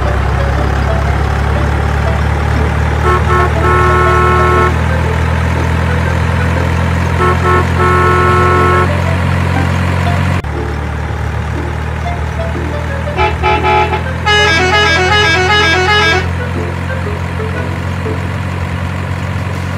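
Truck engine drone under two long horn honks a few seconds apart, then a quick tune of stepping horn notes about two-thirds of the way through.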